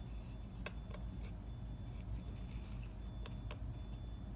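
Quiet room tone with a steady low hum and a few faint clicks.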